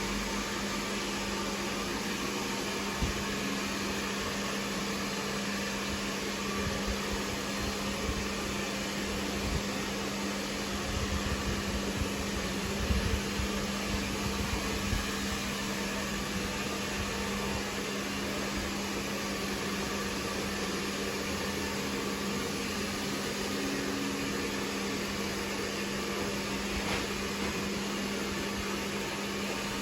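Steady motor hum with a constant low drone, the kind made by a running fan or air-conditioning unit. A few soft low bumps come through around the middle.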